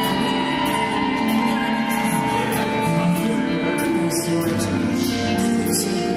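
Live pop band music from a drum kit and electric guitars, with a steady beat of cymbal strikes over sustained chords.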